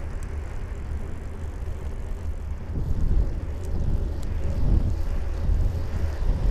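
Wind buffeting the microphone of a bicycle-mounted camera while riding, a steady low rumble with tyre and road noise underneath, and a couple of faint ticks around the middle.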